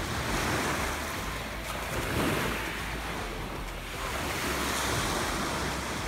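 Sea surf washing onto the beach, a steady rush that swells and eases, with wind rumbling on the microphone.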